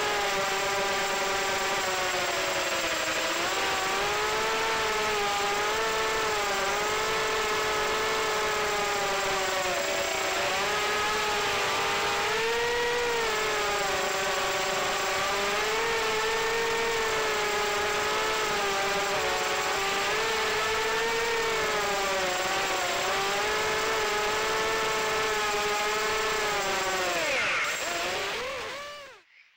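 FPV quadcopter's brushless motors and propellers whining, heard from on board, the pitch rising and falling constantly with throttle. Near the end the whine sweeps down and cuts off as the quad lands.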